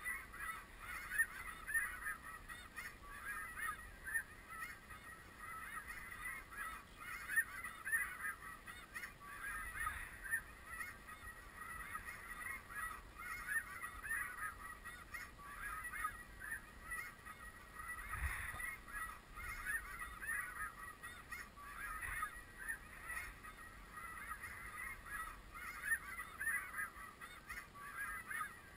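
Snow geese calling: a dense chorus of many overlapping high honks that goes on without a break. One brief low thump comes a little past the middle.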